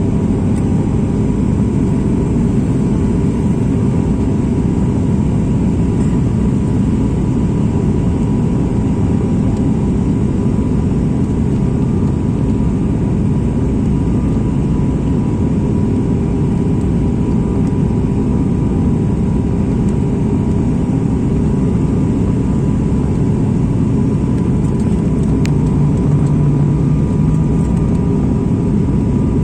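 Steady rumble of airliner engines and airflow heard from inside the passenger cabin, with a faint constant whine and a low hum that swells briefly near the end.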